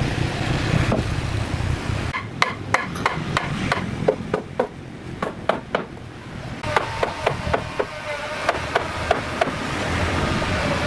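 Repeated hammer blows on wood, a couple of sharp knocks a second with a short ring, starting about two seconds in and running until near the end.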